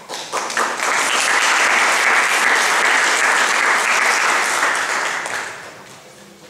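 Audience applauding: the clapping starts suddenly, holds steady for several seconds, then dies away over the last second or so.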